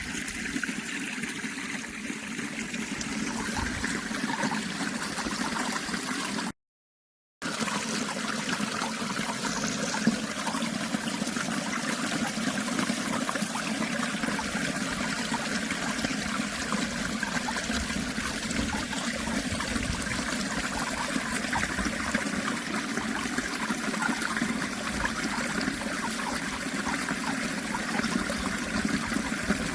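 Running water trickling and flowing steadily, with a brief complete dropout to silence about seven seconds in.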